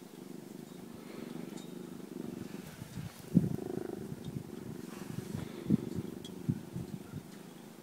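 Domestic cat purring steadily, very close to the microphone, with two brief louder sounds about three and a half and nearly six seconds in.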